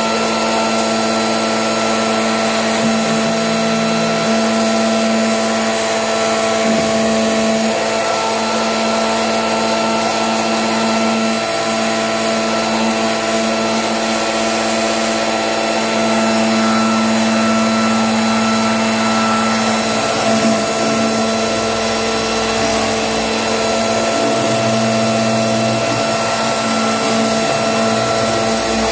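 An electric motor running steadily: a loud hum with a steady whine over a rushing noise, its lower tone shifting slightly now and then.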